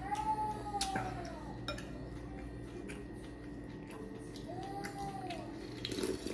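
Cutlery and a porcelain soup spoon clicking against dishes during a meal, in scattered light clinks. Twice, at the start and about five seconds in, a short high whine rises and falls.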